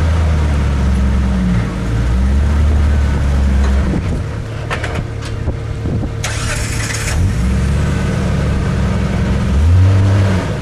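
Off-road 4x4's engine revving up and easing off in repeated bursts as it crawls over rock. A few sharp knocks come about halfway through, followed by about a second of hissing noise.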